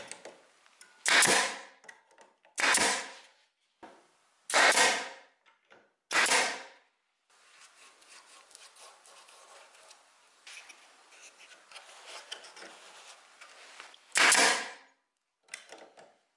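Pneumatic nailer firing four sharp shots a second or two apart, driving nails into a wooden block. Then a brush faintly scratches as it spreads a coat on the block, and the nailer fires again near the end, once loudly and once more softly.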